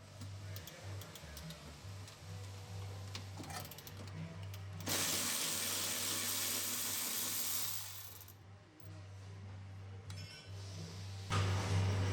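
Tool work on the sway bar link's factory hardware: small metal clinks of tools and bolts, with a loud, even hissing tool noise for about three seconds midway, over low background music.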